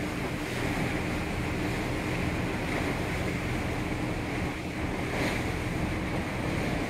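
Steady rush of wind and sea water along the side of a moving cruise ship, with wind on the microphone and a low steady hum underneath.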